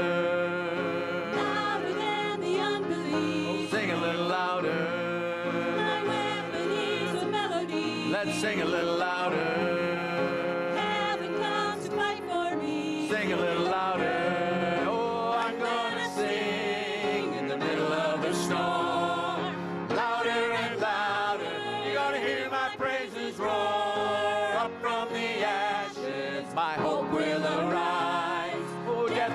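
Worship team of men and women singing a contemporary worship song together into microphones, with music under the voices.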